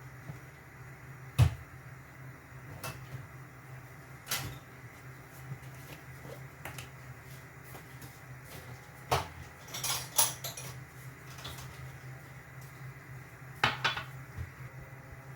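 Scattered knocks and clinks of kitchen utensils and dishes being handled, the loudest about a second and a half in, with a few quick clusters near the middle and near the end, over a steady low hum.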